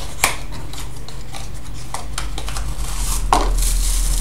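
Packaging being handled while a USB cable is taken out of a phone box: two sharp clicks, one just after the start and one near the end, a few lighter taps, and rustling in the last second, over a steady low hum.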